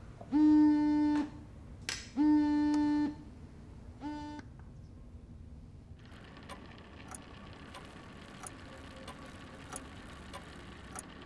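The same sustained musical note sounds three times, each time starting with a slight upward slide, holding steady and cutting off sharply; the last is shorter, and a single click falls between the first two. From about six seconds in there is a low steady background with a faint regular tick about every two-thirds of a second.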